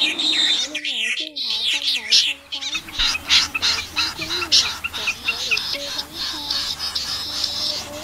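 Snipe lure recording: a dense chorus of short, high calls repeated several times a second, with lower wavering notes underneath. The high calls drop out briefly about a second in. It is the kind of track played at night to draw migrating snipe into mist nets.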